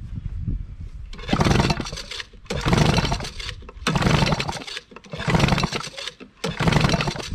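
Recoil starter of an 8 hp Mariner (Yamaha-built) outboard pulled five times in quick succession, about one pull every 1.3 seconds, spinning the engine over with a spark plug out and a compression gauge fitted to take a cylinder's compression reading.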